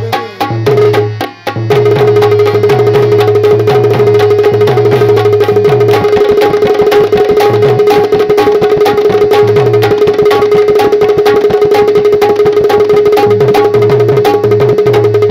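Instrumental break in a Bundelkhandi rai folk song: fast tabla drumming over one steady held drone note.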